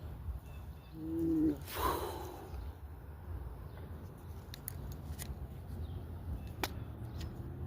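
A fishing cast: a brief swish about two seconds in, then a few light clicks from the spinning reel, over a steady low outdoor rumble with a short chirp-like call just before the swish.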